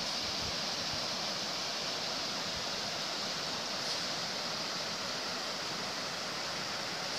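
Steady rushing of a mountain river over its stony bed.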